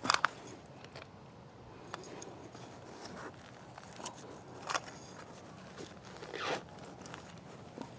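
Handling noises from harvesting ginger: a sharp crunch right at the start, then scattered light clicks and two short scrapes, the longer one about six and a half seconds in.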